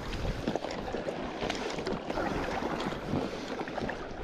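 Double-bladed paddle dipping and splashing as an inflatable kayak is paddled, with water lapping at the hull and wind buffeting the microphone.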